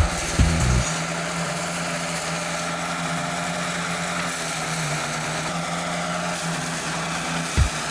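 Small 212cc single-cylinder four-stroke petrol engine of a garden shredder running steadily at speed, a constant hum.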